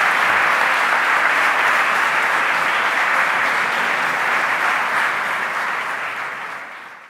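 Audience applauding steadily, fading out over the last couple of seconds.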